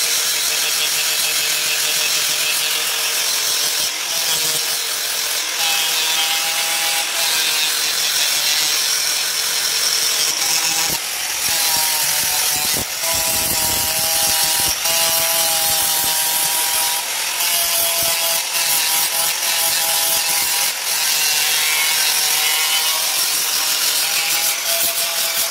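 Handheld angle grinder grinding the steel blade of a khara, a sacrificial chopper, to sharpen it: a continuous grinding hiss over the motor's whine, whose pitch dips and recovers as the disc is pressed into the metal.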